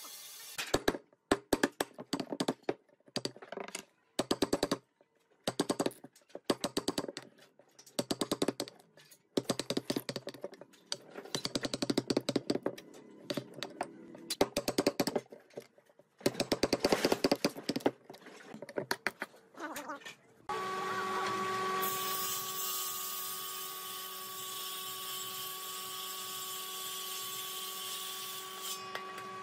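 Mallet driving a chisel into a wooden stump slab: clusters of rapid, sharp blows with short pauses between them. About two-thirds through, a jointer-planer starts and runs steadily, planing a board.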